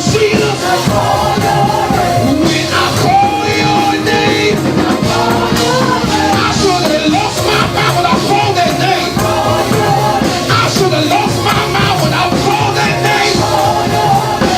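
Gospel praise music: voices singing a wavering melody over a band accompaniment, loud and continuous.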